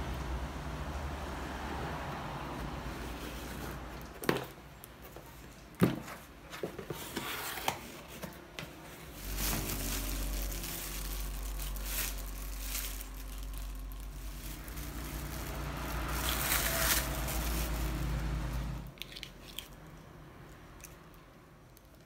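Packing tape peeled off a cardboard box, then cardboard flaps, crumpled kraft paper and plastic wrap rustling and crinkling as kitchen utensils are unpacked. Two sharp knocks come about four and six seconds in, and a low steady hum runs underneath.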